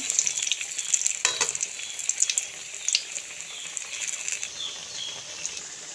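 Banana-flower vadais deep-frying in hot oil on a high flame: a steady sizzling hiss, with a few sharp clicks, the loudest about a second in.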